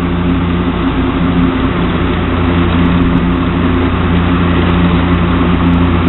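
Electric fan running steadily: a constant low motor hum with the rush of moving air.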